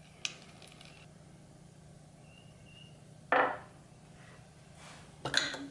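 A light click, then two short knocks about two seconds apart. These are small metal carburetor parts and a wrench being handled and set down on the jig's plywood base as the float bowl nut comes off the carburetor.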